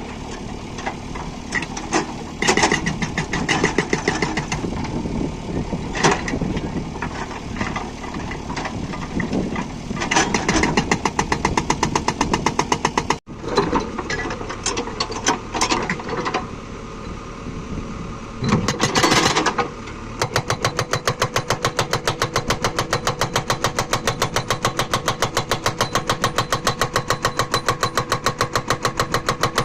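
JCB 3DX backhoe loader's diesel engine running under hydraulic load with irregular clanks and knocks. About two-thirds of the way in, a hydraulic rock breaker starts a rapid, even hammering on hard stone.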